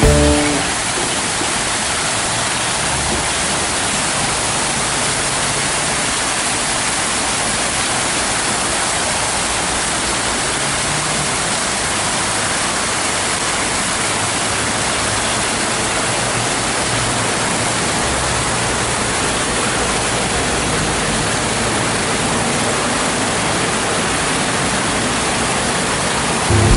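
Rows of small fountain jets splashing steadily into a shallow pool: an even, unbroken wash of falling water.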